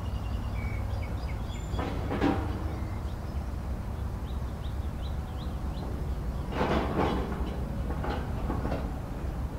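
Hydraulic excavator's diesel engine running with a steady low rumble while it digs, with a few heavy knocks from the machine about two seconds in and again around seven and eight seconds in. Birds chirp faintly in between.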